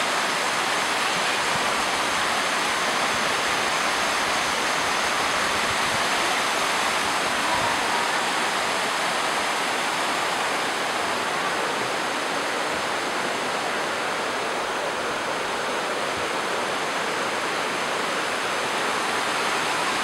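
Water of a small rocky waterfall cascading over the rocks in a steady, even rush.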